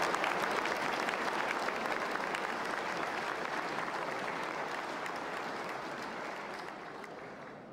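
Large crowd applauding, many hands clapping at once; the applause slowly dies away near the end.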